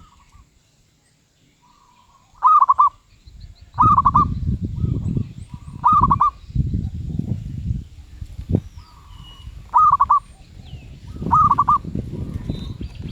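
Medium-voiced zebra dove (merbuk) cooing: about five loud bursts, each a rapid run of three or four quick notes, with softer coos between them.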